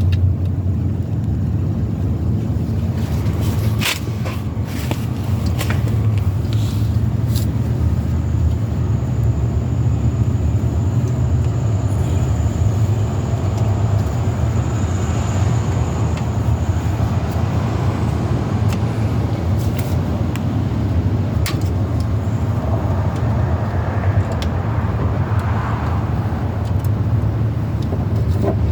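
A steady low mechanical drone, with a few sharp metallic clicks and clinks of hand tools on drum brake parts scattered through it, several close together early on and a few more later.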